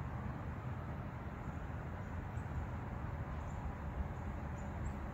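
Steady, low outdoor background rumble with no distinct event in it.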